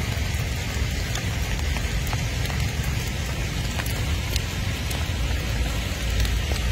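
Steady outdoor background noise: an even hiss over a low rumble, with scattered faint ticks.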